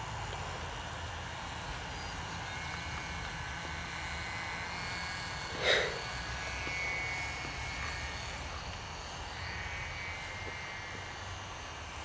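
Radio-controlled model airplane's engine running with a high whine that wavers and swells as it passes over, above a low steady rumble. A single short, sharp sound about halfway through is the loudest moment.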